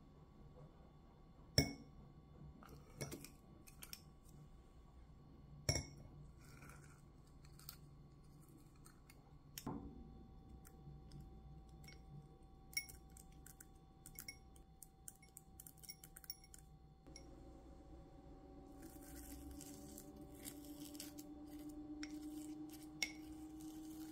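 Metal ice cream scoop clinking and scraping against a ceramic bowl as frozen homemade amazake ice cream is scooped out, in a few sharp knocks, then quicker light clinks of a spoon in the bowl. A faint steady hum with a slowly rising pitch comes in about two-thirds of the way through.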